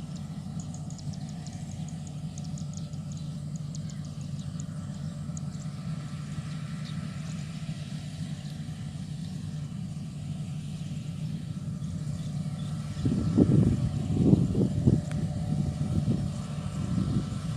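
Rice combine harvester engine running steadily with a low drone. About three-quarters of the way through it grows louder in uneven surges.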